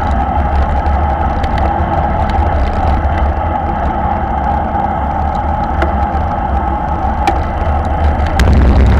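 Wind rumbling over an action camera's microphone on a road bike riding at about 40 km/h, with steady tyre-on-asphalt noise and a few sharp ticks. The rumble gets louder near the end.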